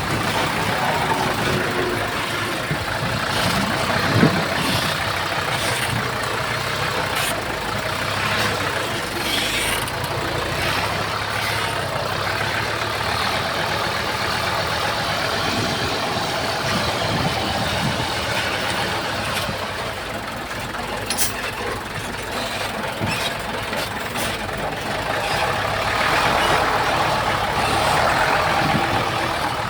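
Heavy diesel earthmoving machinery running steadily, with scattered short metallic knocks. It gets a little louder near the end.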